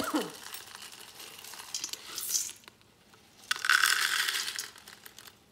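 Dry brown rice pasta being poured from a metal bowl through a plastic measuring cup into a stainless steel Instant Pot inner pot, the pieces rattling and clattering in several pours, the longest a little past the middle.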